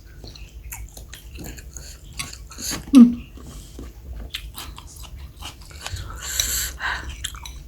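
Close-up chewing of bakso meatballs: a run of small wet clicks and smacks, with a short voiced sound about three seconds in.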